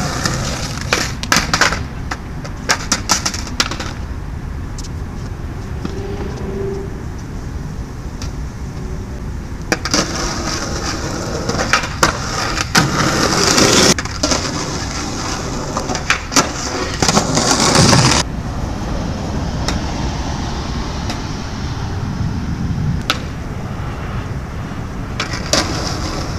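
Skateboard wheels rolling on concrete in spells, with sharp clacks of the board's tail popping and the deck slapping down during flatground tricks.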